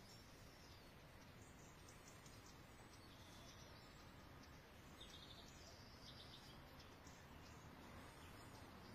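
Near silence: faint outdoor background hiss with a few faint, high bird chirps, a small cluster of them about five seconds in.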